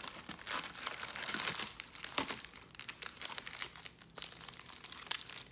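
Plastic wrap crinkling and tearing with dense quick crackles, as a trading-card hobby box is unwrapped; it is busiest in the first few seconds and thins out near the end.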